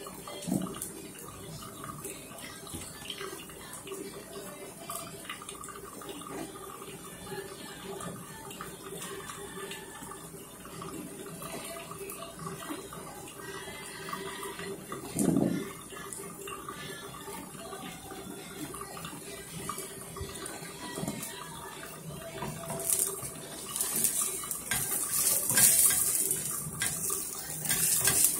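Zucchini pancake sizzling in oil in a nonstick frying pan, a steady hiss with fine crackling. There is a dull knock about halfway through, and the sizzle grows louder in the last few seconds.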